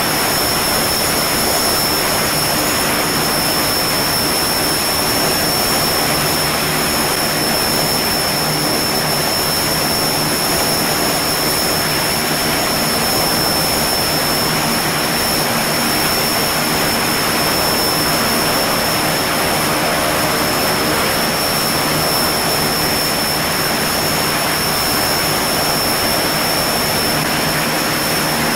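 Antonov An-26's Ivchenko AI-24VT turboprop engine running steadily on the ground, its propeller turning, with a constant high turbine whine over the engine noise.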